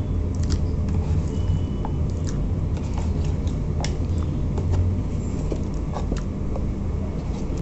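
Raw chicken pieces going into a plastic bowl of curd marinade, with soft wet squelches and scattered light clicks, over a steady low hum.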